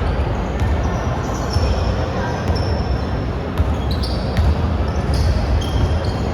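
Basketball game play in a gym: a ball bouncing on the hardwood court and sneakers giving short high squeaks, over a steady hall rumble. A few sharp knocks come about three and a half to four and a half seconds in.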